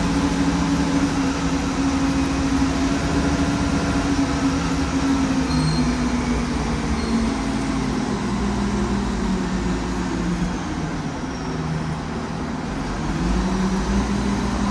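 Heavy machine's engine running steadily, easing off and dropping in pitch past the middle, then picking up again near the end.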